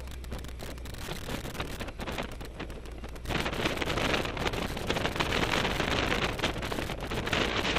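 Wind buffeting the microphone of a camera mounted on the outside of a moving car, a rough, crackling rush that grows louder about three seconds in.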